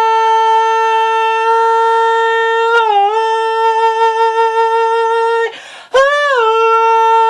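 A solo voice holding long wordless notes, a steady high pitch with a slight dip about three seconds in. Near the end a quick breath is drawn, then a new note slides up into another long hold. No accompaniment.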